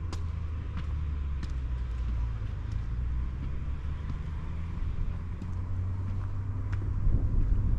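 Low, steady engine rumble of a distant motor vehicle, with footsteps on gravel steps clicking over it.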